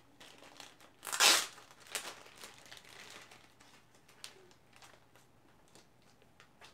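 Clear plastic packaging bag crinkling and being torn open, loudest in one sharp rip about a second in, followed by lighter rustles and small clicks of handling.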